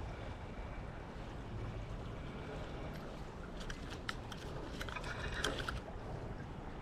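Steady rush of a creek's running water, with a cluster of small clicks and rattles a little past halfway.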